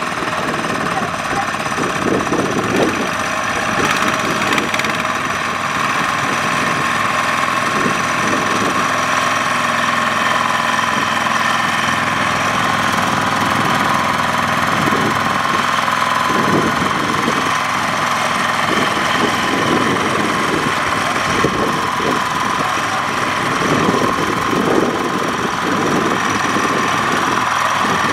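Kubota power tiller's single-cylinder diesel engine running steadily under heavy load, with an uneven low chugging, as the two-wheel tractor strains to pull a trailer of rice sacks out of deep mud.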